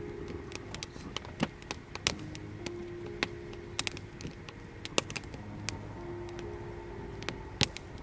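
Wood campfire crackling, with irregular sharp pops and snaps. Soft background music plays underneath, in long held notes.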